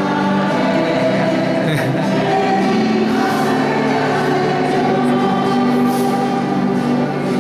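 Choir singing religious music with accompaniment, on long held notes.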